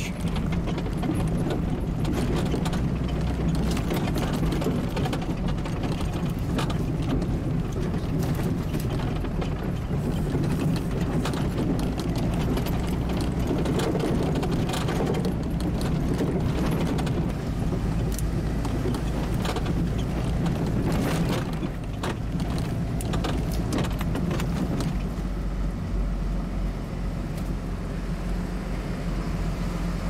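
Inside the cab of a 2007 Ford F650, its 5.9-liter diesel engine running steadily as the truck drives slowly, with clicks and rattles from the cab throughout. The Allison transmission is not upshifting and holds the truck in a low gear.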